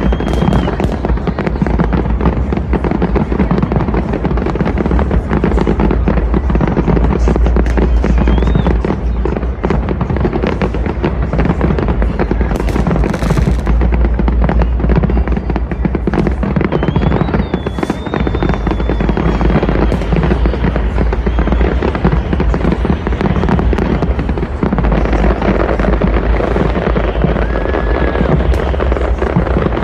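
Dense fireworks: a continuous barrage of bangs and crackling over a deep rumble, with an occasional whistle from a rocket.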